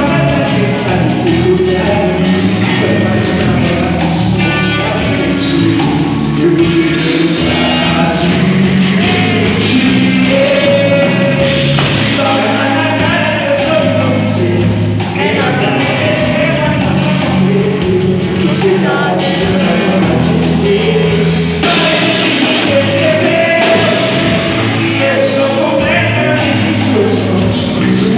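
A band playing live music with a singer singing over it, loud and continuous.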